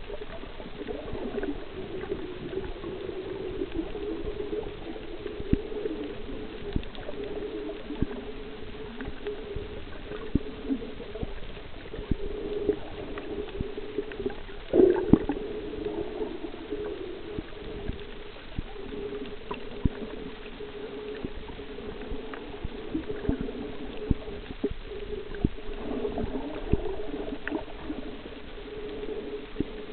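Underwater sound on a shallow reef: a steady, wavering hum with many scattered sharp clicks, and one louder burst about halfway through.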